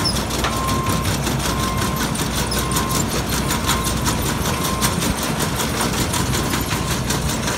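Bobcat compact track loader's diesel engine running steadily while it drives a landscape rake through loose soil, with a fast, even rattle. A backup alarm beeps about once a second during the first five seconds.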